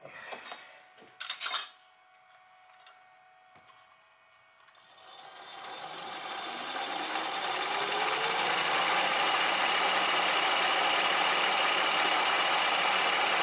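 A few clicks and knocks of handling, then about five seconds in a workshop machine's electric motor starts, rising in pitch as it spins up, and runs on loud and steady with a dense mechanical rattle.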